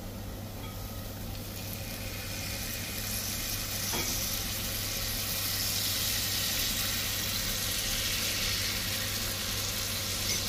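Rendered beef fat sizzling in a hot pan with roasted masala, the sizzle growing louder over the first few seconds and then holding steady. A single short knock about four seconds in.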